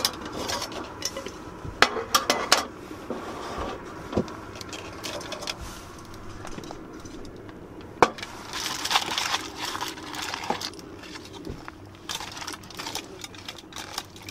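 Aluminium camp cookware clinking, with several sharp metal clinks as the pot lid is lifted off and set down, then aluminium foil crinkling as it is peeled off a bowl.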